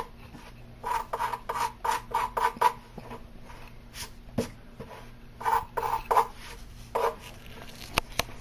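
Hand sanding of peel-and-stick edge banding with a sandpaper-covered block: runs of quick back-and-forth rasping strokes, about six in a row early on, then a few more past the middle. A dull knock comes near the middle and a sharp click near the end.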